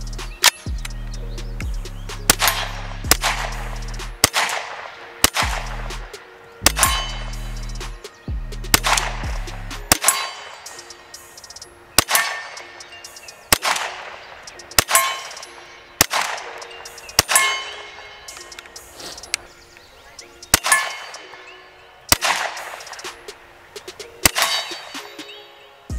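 KRISS Vector CRB semi-automatic carbine in .45 ACP firing a string of single shots, roughly one a second at an uneven pace, each shot sharp with a short ringing tail.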